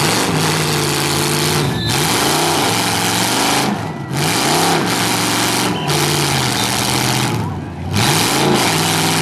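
Demolition derby car's V8 engine running, revved up and let back down about three times.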